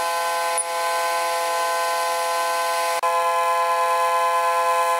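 Stepper motors of a hobby CNC hot-wire foam cutting machine whining with a steady multi-tone hum as the wire cuts. The hum changes pitch abruptly with a faint click about half a second in and again about three seconds in.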